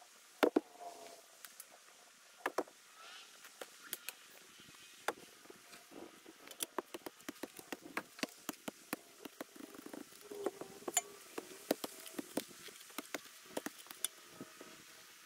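A shovel digging into soil, with frequent irregular sharp knocks and scrapes of the blade.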